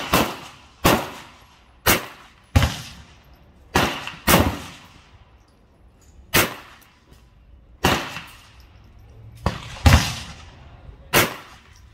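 About eleven gunshots at irregular intervals, each a sharp crack with a short echo trailing off after it.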